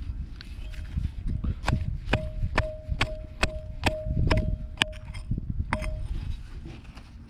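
A metal digging tool chopping into hard soil: about ten sharp, evenly spaced strikes, roughly two a second, each with a short metallic ring.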